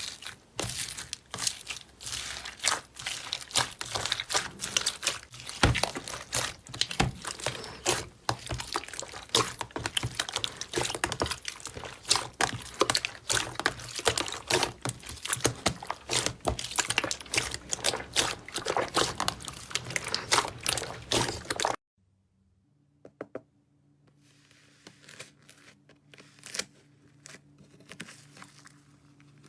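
Slime being squeezed and pressed by hand, making dense wet crackling and popping. It cuts off suddenly about two-thirds of the way in. Sparse, quieter crackles of slime follow over a faint steady hum.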